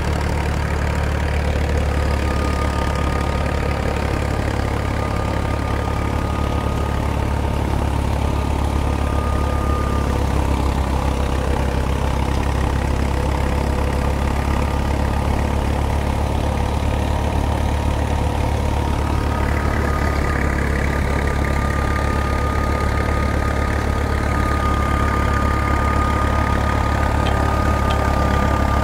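New Holland Fiat 480 tractor's diesel engine running steadily at constant speed, driving a wheat thresher. A steady high whine from the machinery sits over the engine's low drone and grows stronger about two-thirds of the way through.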